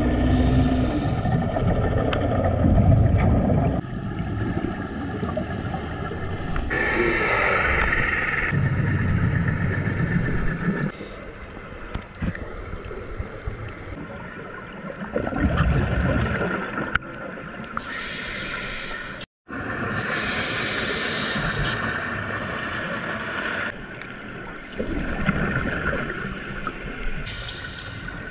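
Scuba diver's regulator breathing, heard underwater through a GoPro housing: low rumbling bubble bursts on the exhalations alternate with higher hissing stretches on the inhalations, every few seconds. The sound cuts out suddenly for a moment about two-thirds of the way through.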